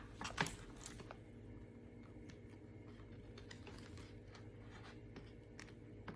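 A few light clicks and taps while the cracked front glass of an iPad 7th generation is pried and lifted off: a quick cluster in the first second, then scattered faint ticks.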